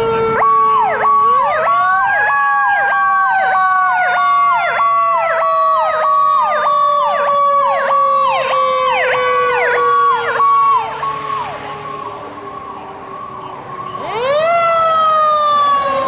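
Fire truck sirens sounding together. One wails, rising and then slowly sliding down in pitch, and rises again near the end. The other cycles quickly about twice a second and cuts out about two thirds of the way through.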